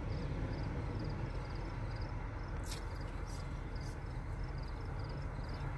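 Outdoor ambience: a steady low rumble with faint, high chirps of several quick pulses each, repeating about twice a second. A brief click or rustle comes near the middle.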